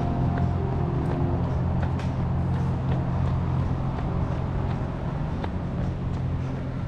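City street traffic: a steady low engine rumble from road vehicles, with scattered light taps and clicks over it.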